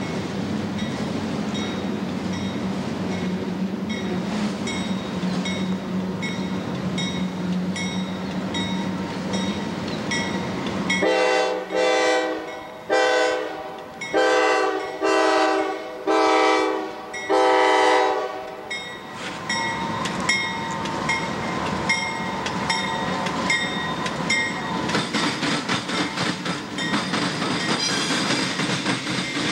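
Westbound CSX train led by GE AC4400CW diesel locomotive #5112 rolling toward the track, its engine running with a steady low hum and wheels clicking over rail joints. About eleven seconds in its air horn sounds a series of about five loud blasts over some seven seconds, then the locomotives and intermodal cars roll past with wheel and rail clatter.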